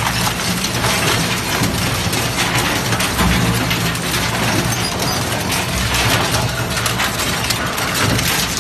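Industrial shredder tearing up scrap metal tubing and frames: a continuous mass of crunching, snapping and clanking metal over the steady low drone of the machine's drive.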